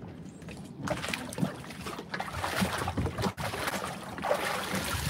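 Water sloshing against a boat's hull.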